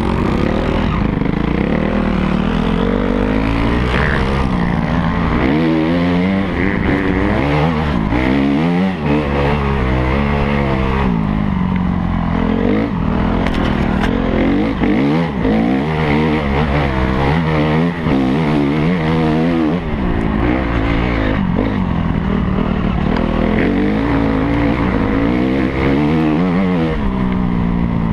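Honda CRF250R's single-cylinder four-stroke engine running close to the microphone, its pitch repeatedly rising and falling as the throttle is worked while the dirt bike is ridden along a trail.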